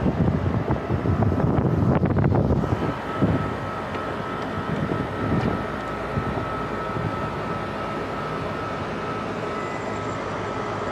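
Rooftop air-conditioning equipment running with a steady mechanical hum, with wind buffeting the microphone for the first couple of seconds. A few clicks come about two seconds in, then the noise settles into a steadier drone with a thin high whine.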